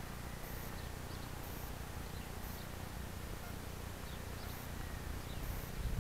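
Wind buffeting the microphone as a steady low rumble, with a few faint, short, high bird chirps scattered through it.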